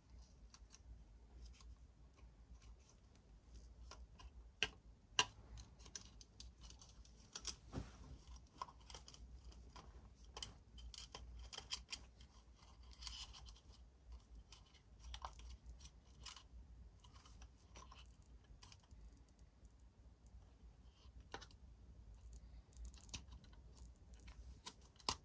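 Faint, irregular small clicks, taps and scrapes of the soap dispenser's plastic housing, wires and connectors being handled and fitted back together, with a couple of sharper clicks about five seconds in.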